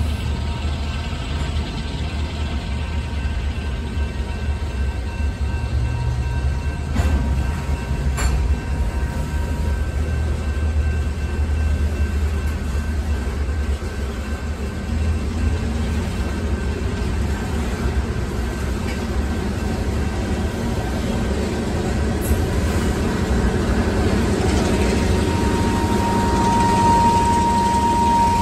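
Freight train of covered hopper cars rolling past: a steady low rumble of wheels on rail, with two sharp clicks about seven and eight seconds in. Near the end a steady high-pitched squeal comes in and grows loud.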